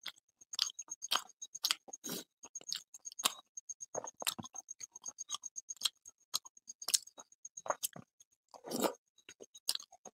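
Close-mic'd sounds of a person eating luchi and curry by hand: chewing and lip smacks mixed with fingers tearing the puffed bread and scooping food from a plate, heard as a run of short, irregular clicks and smacks.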